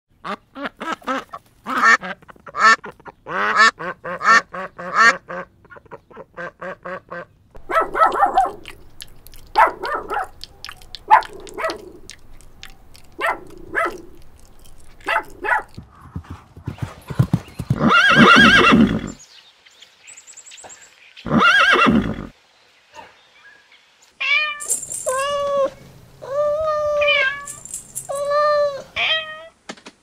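A run of farm animal calls. Quick repeated duck calls fill the first half, and a loud horse whinny comes about 17 to 19 seconds in, with a second loud call shortly after. A string of short pitched calls follows near the end.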